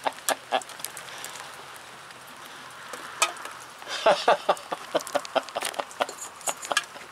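A person laughing in quick rhythmic bursts, stopping for a couple of seconds of steady hiss and then starting again.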